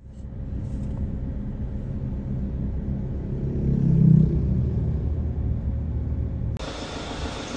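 Low, steady rumble of vehicles on the road in town traffic, swelling briefly about four seconds in. Near the end it changes suddenly to a brighter, hissier road noise.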